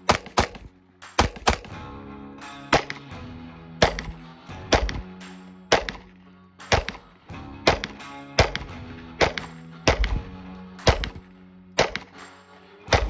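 Springfield Armory Hellcat Pro 9mm pistol fired in a steady string of single shots, roughly one every half second to a second, with background music underneath.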